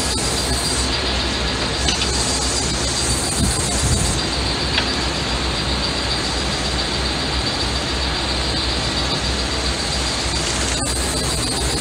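A steady, loud whirring drone with a faint high whine held throughout. A few light metallic clicks from hand tools working on the front-suspension ball joint are heard over it.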